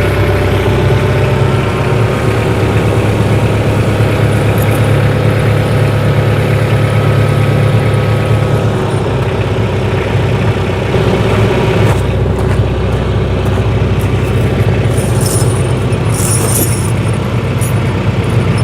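Tractor engine running steadily as the tractor creeps forward to draw a snow chain over the tyre, its low note shifting about nine seconds in. A light metallic jingle comes near the end.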